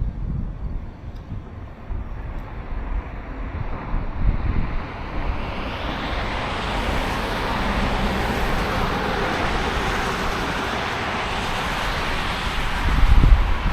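Wind buffeting the microphone in gusts, with road traffic hiss that swells from about five seconds in and stays steady. A stronger gust hits near the end.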